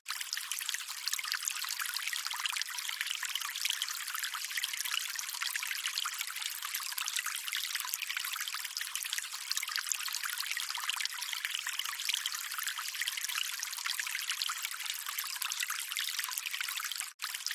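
Running water trickling steadily, a bright hiss with no low rumble. It cuts out for a split second near the end.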